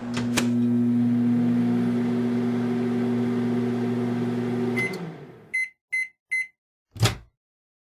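Microwave oven running with a steady hum, starting with a click, that stops about five seconds in. It then gives three short beeps to signal the end of the cycle, followed by a single sharp click.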